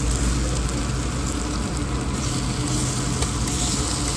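Pork belly sizzling steadily on a tabletop Korean barbecue grill, with a steady low hum underneath.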